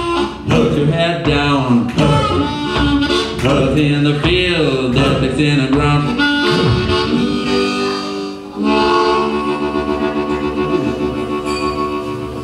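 Harmonica played cupped against a vocal microphone with the band behind it: bending, wailing notes, then from about eight and a half seconds one long held note that slowly tapers off.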